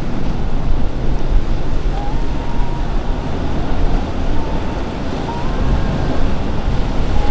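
Wind on the microphone over choppy sea and the low engine noise of a passing motor yacht.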